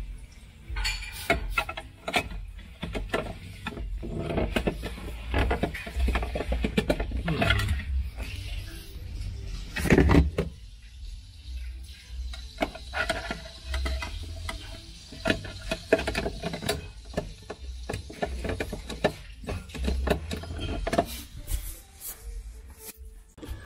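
Hard plastic refrigerator panels and covers being handled and fitted, making irregular clicks, knocks and scrapes, with one louder knock about ten seconds in.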